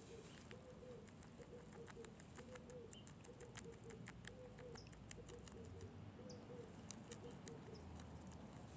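Guinea pig chewing a broccoli leaf: faint, quick nibbling clicks, with a dove cooing over and over in the background.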